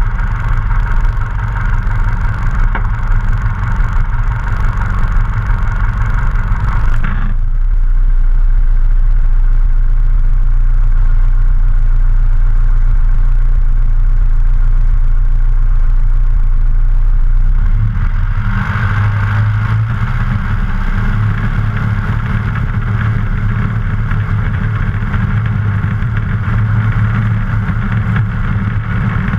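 A Luscombe light aircraft's piston engine idling steadily, propeller turning slowly. About seven seconds in, a heavy low rumble swamps the engine's higher sound and stays for about ten seconds before the plain idle returns.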